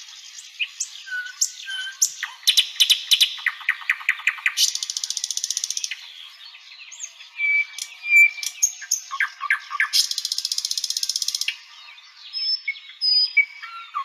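Nightingale singing a varied song of rapid repeated notes, dense buzzing trills and clear whistles, broken by short pauses between phrases.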